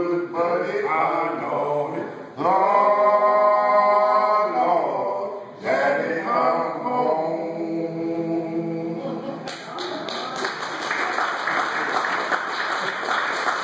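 Group of men singing a menhaden fishermen's work song a cappella in long held phrases. About nine and a half seconds in, the singing stops and applause begins.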